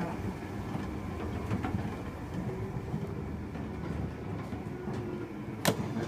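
A steady low mechanical rumble of running machinery, with one sharp click near the end.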